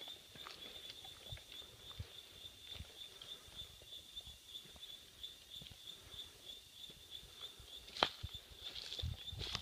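Steady, high-pitched drone of insects, faintly pulsing, over soft footsteps and handling on a dirt path, with one sharp click about eight seconds in.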